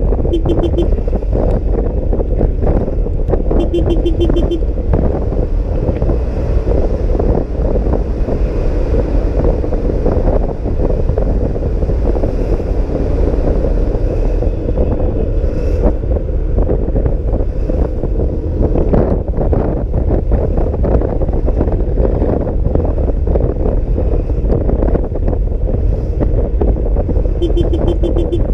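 Wind rushing over the microphone of a scooter rider at speed in the rain, over the scooter's engine hum. A short, fast-pulsing beep sounds three times: twice in the first few seconds and once at the end.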